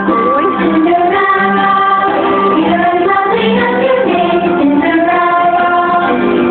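Fireworks show soundtrack: music with a woman singing long, held notes over sustained accompaniment.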